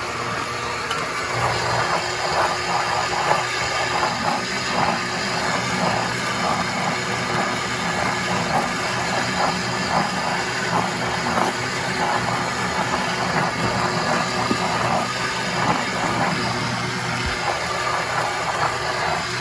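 Countertop blender with a glass jar running steadily, its motor whirring as it churns a watery mixture of chili powder, onion, garlic and chipotle peppers into enchilada sauce.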